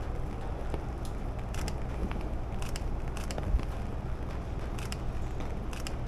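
Outdoor street ambience: a steady low rumble, like wind on the microphone, with scattered light ticks and crackles.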